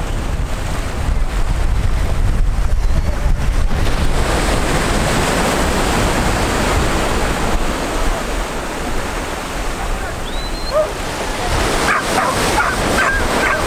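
Surf washing and breaking on a beach, with wind rumbling on the microphone. A few brief high calls cut through about ten seconds in and again near the end.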